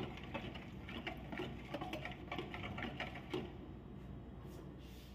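Wire balloon whisk beating warm milk and fresh cream in a plastic bowl, its wires clicking against the bowl about three times a second. The whisking stops about three and a half seconds in.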